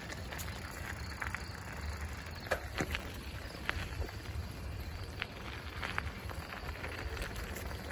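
Amtrak Wolverine passenger train passing: a steady low rumble with occasional sharp clicks of wheels over the rail.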